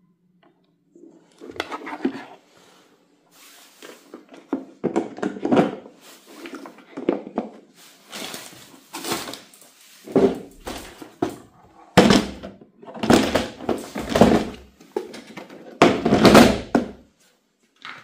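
Hard plastic knocks, clatters and scrapes as a cordless lawn mower's parts are handled and fitted.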